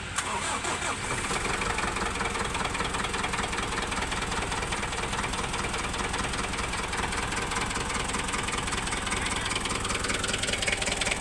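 Kubota M9000 tractor's turbo diesel engine running, getting louder with a sharp click about a quarter second in, then holding a steady rattling run, with a tone rising in pitch near the end. The engine is overheating, spitting coolant and blowing white smoke, and is noisy (bising).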